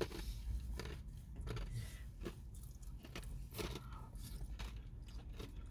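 A person biting into and chewing a sauced chicken wing, close up: irregular small crunches and clicks of meat, skin and gristle between the teeth.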